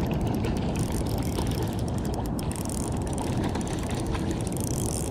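Spinning reel, a Shimano Stradic CI4+, ratcheting with a rapid run of fine clicks while a hooked trout is played in close to the landing net.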